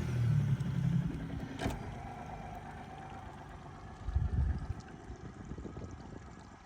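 An engine running just after being started, loudest in the first second and fading toward the end, with a single sharp knock a little under two seconds in.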